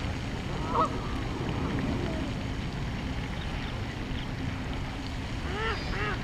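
Ducks calling: a single call about a second in, then a quick run of repeated calls, about four a second, near the end, over a steady low rumble.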